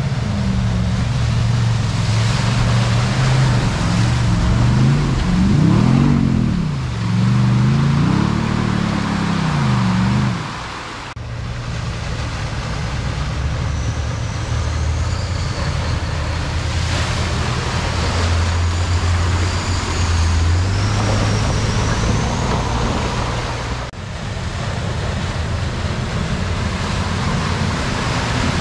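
Four-wheel-drive engines pushing through a flooded creek crossing over the steady rush of fast-flowing water. The engine note rises and falls several times about five to ten seconds in. There are abrupt changes about eleven and twenty-four seconds in as each new vehicle enters the water.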